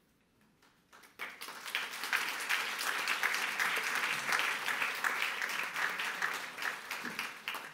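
Audience applauding, beginning about a second in and fading near the end.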